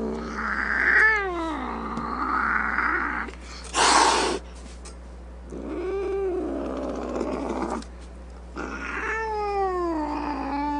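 Cat yowling: long drawn-out meows that slide in pitch, separated by short pauses, with a brief hissing noise about four seconds in.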